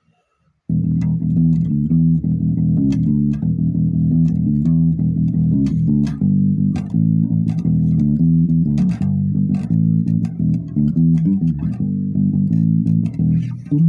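Freeman electric bass guitar with humbucker pickups, played through a Boss GEB-7 bass equalizer, playing a classic-rock bass line with its two pickup volume controls in use. The playing starts under a second in, as a steady run of plucked notes.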